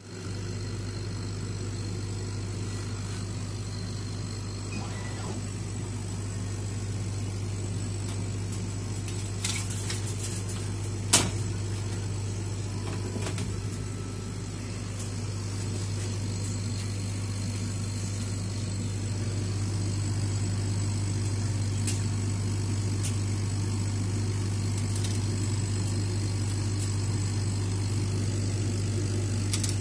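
Steady low machine hum from the running setup of a 100 W RECI CO2 laser cutter, with its fans and pumps on while the bed sits idle. A few sharp clicks and knocks come about a third of the way in as cut plywood pieces are handled.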